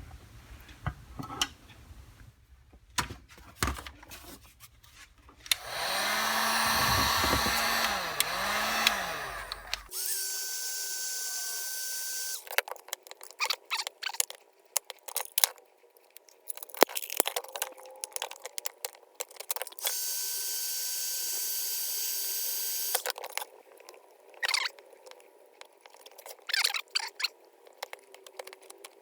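Small power tool running in several short bursts, its speed dipping and recovering as it bears on the work, used to strip old paint and rust off small metal parts. Clicks and knocks of parts being handled come between the bursts.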